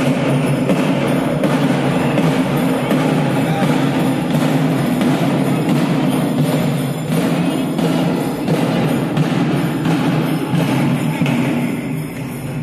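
Loud festival procession music, mostly drumming and jingling percussion, over the din of a packed crowd, easing off a little near the end.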